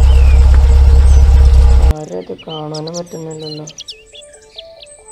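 Loud, steady low rumble that cuts off suddenly about two seconds in. Birds chirping follow, and soft background music with a regular repeating melody comes in near the end.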